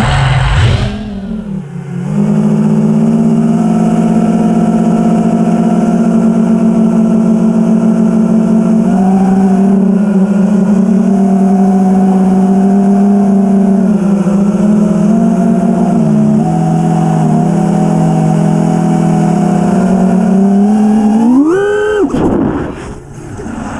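FPV racing quadcopter's four brushless motors (iFlight Xing-E 2207 1800kv on 6S) spinning 5-inch props, buzzing close to the onboard camera. They spool up at once, hold a steady throttle with small pitch wobbles, then punch up sharply and drop back near the end.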